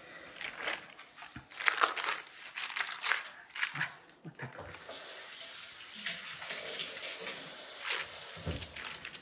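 Parchment paper rustling and crinkling under floured hands as bread dough is shaped into a ball on it. The sound comes in quick bursts for the first few seconds, then turns into a steadier swishing as the dough is turned and worked over the paper.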